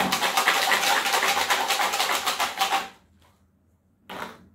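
Loud, fast rattling of a hand-shaken object, many even clicks a second, which stops abruptly about three seconds in. Two short knocks or sounds follow near the end.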